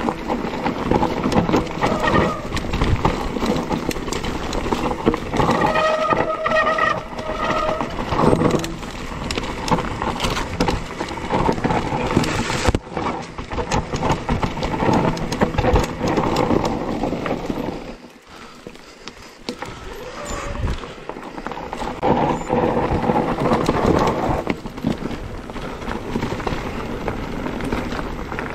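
Mountain bike ridden down a rough trail: tyres, chain and frame rattling and knocking over rocks and roots, quieter for a few seconds past the middle.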